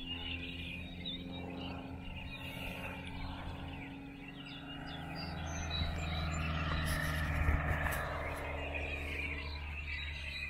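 Engine drone, a steady low hum with even overtones, that swells about five seconds in and eases off toward the end.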